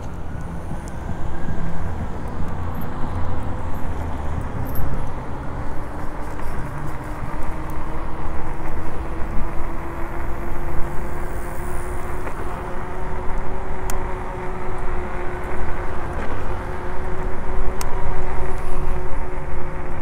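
Riding noise from a Delfast electric bike at speed: wind buffeting the microphone and road rumble, with a steady motor whine that climbs slightly in pitch over the first several seconds.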